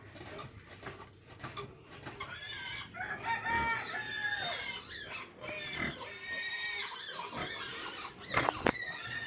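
Piglets squealing: a run of high, wavering calls from about three seconds in, with two sharp knocks near the end.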